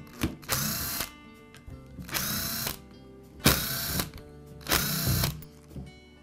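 Cordless power screwdriver running in four short bursts, one for each screw backing out of the drill's rear cover, each whir spinning up at its start.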